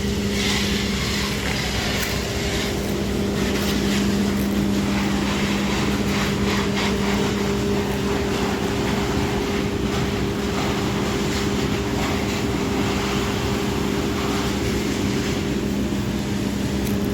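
A motor running at a steady, unchanging speed, giving a constant low hum, with scattered faint clicks over it.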